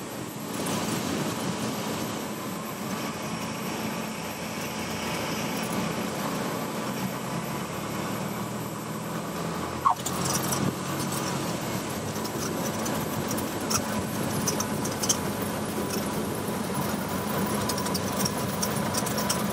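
Cessna 172's four-cylinder piston engine and propeller running steadily at low power in the cockpit during the landing rollout. A single sharp click comes about halfway through, followed by scattered faint crackles.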